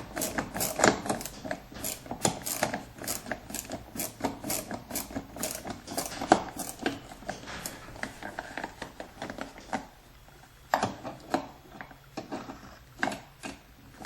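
Hand tool clicking in quick, evenly spaced strokes, about two to three a second, as a fastener is worked out of a car door; the clicking stops for a couple of seconds and then comes back as a few scattered clicks near the end.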